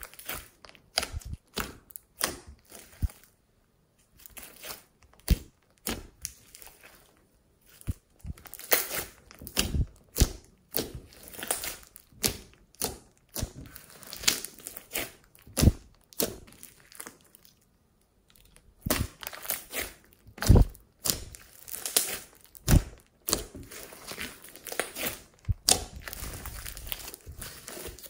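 Hands kneading, squeezing and stretching thick glossy slime, making irregular sticky crackles, clicks and pops, with two short pauses.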